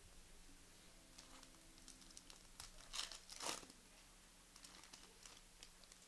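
Faint crinkling and tearing of a trading card pack wrapper being opened, with scattered small clicks and rustles of handling. Two louder crinkles come about three seconds in.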